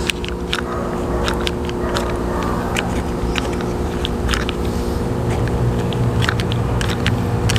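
Trigger bar clamp being slid and squeezed, giving many small irregular clicks, over a steady low machine hum.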